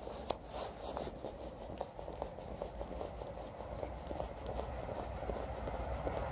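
Class 444 Desiro electric multiple unit approaching along the track: a rail rumble that grows steadily louder, with scattered light clicks.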